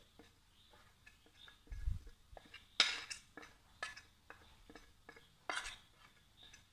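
Steel spoon scraping and tapping chilli powder off a steel plate into a steel bowl: a scattered string of light metal clicks and taps.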